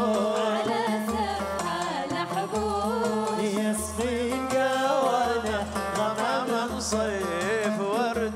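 Live Yemeni song: a wavering, ornamented melody over a steady low drone and pulsing bass notes.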